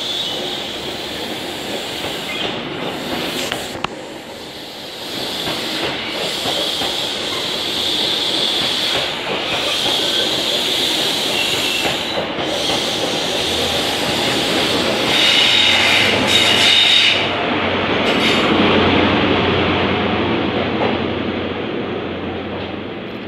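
An LNER High Speed Train's Mark 3 coaches rolling past at the platform, with wheel and rail noise and a steady high hiss. About two-thirds of the way through, the Class 43 diesel power car's engine drone passes and the sound peaks, then fades as the train draws away.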